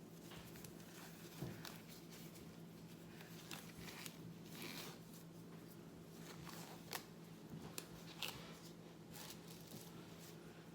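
Faint rustling with scattered light clicks and snaps as disposable gloves are pulled on and the hands handle things, over a steady low hum.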